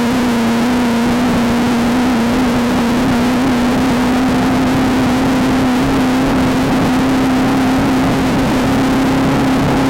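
Off-road race car engine running hard at high, nearly steady revs, its pitch creeping slowly upward, over a loud rushing noise.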